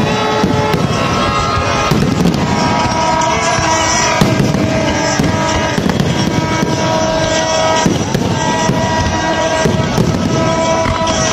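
Aerial fireworks bursting overhead in a continuous barrage of bangs and crackles.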